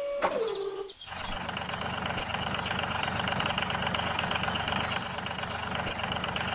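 A short falling tone, then from about a second in a motor running steadily with a fine, rapid pulsing.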